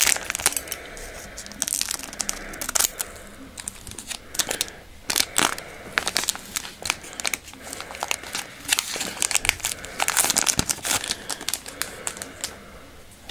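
Plastic wrapper of a Pokémon trading card booster pack crinkling with irregular sharp crackles as it is handled and torn open by hand.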